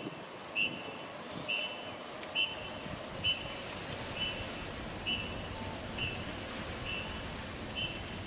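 A bus guide's whistle blown in short, evenly spaced blasts, about one a second, to guide a city bus as it reverses into its bay. A bus engine runs beneath.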